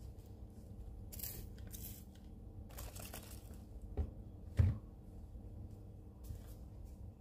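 Trigger spray bottle spritzing cleaner onto a glass tabletop: three short hissing sprays, then two knocks about four seconds in, the second the loudest, over a low steady hum.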